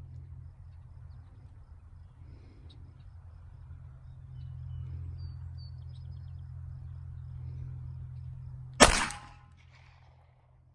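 A single pistol shot from a Glock 43X, sharp and loud near the end, with a short ringing tail. A steady low rumble and a few faint bird chirps lie under it.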